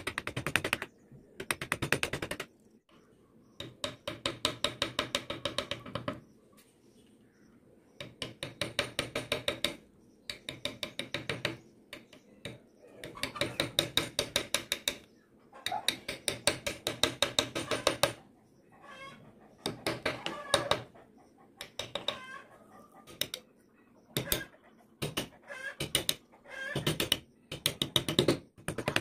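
Hand carving chisel cutting into a wooden relief, the blade chattering through the wood as rapid clicking in bouts of one to three seconds, with short pauses between strokes.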